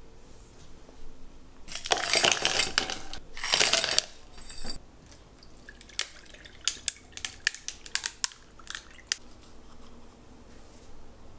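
Kitchen handling sounds: two loud, noisy rattling stretches, then a quick run of sharp clinks of dishes or utensils.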